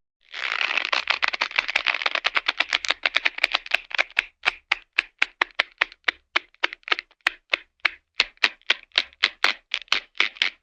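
Cartoon sound effect: a long run of sharp clicking taps. It starts fast and dense, then slows after about four seconds to a steadier patter of four or five taps a second.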